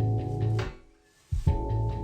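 Background music with a plucked guitar, bass and a steady beat, breaking off briefly about a second in before starting again.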